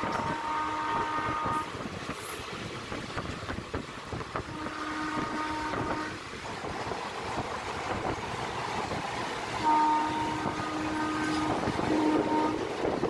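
Multi-tone locomotive horn sounding four blasts: one that runs through the first second and a half, one near the middle, and two close together near the end. Between and under them is the steady rumble and clatter of a train at speed, with a goods train of open wagons running past on the next track.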